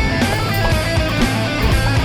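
Background music: a rock track with distorted electric guitar and a steady beat.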